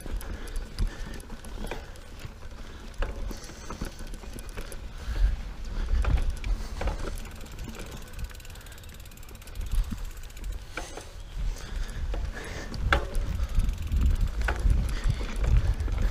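Mountain bike being ridden along a dirt singletrack: a low steady rumble of the tyres and riding, with the ticking of the rear hub's freewheel and scattered sharp knocks and rattles of the bike as it goes over bumps.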